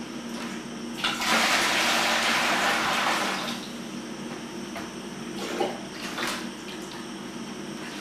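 Cold water poured from a plastic jug into the still's condenser bucket, filling it to cool the worm. The pour splashes for about two and a half seconds, starting about a second in, and is followed by a couple of brief small knocks.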